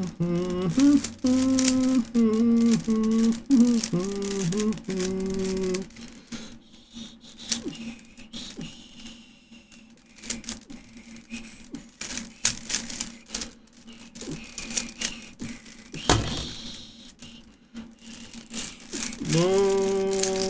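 Plastic Rubik's cube being twisted fast, a run of quick clicking rattles from the turning layers. A voice hums a tune in held, stepping notes over the first six seconds or so and again near the end.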